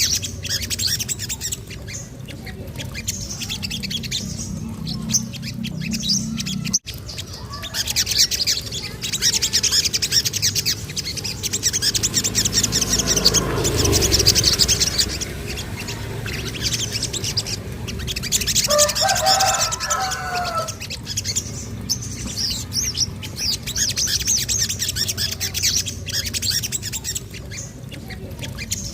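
Sogon (little spiderhunter) song: a fast, unbroken run of high-pitched chirps and trills, the rolling song that keepers play to get the bird singing. About 19 seconds in a lower warbled phrase stands out. A steady low hum runs underneath, and the sound cuts out for an instant about 7 seconds in.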